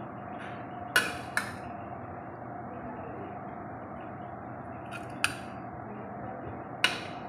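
A serving spoon clinking sharply against a ceramic plate about five times as biryani is served onto it, over a steady background hum.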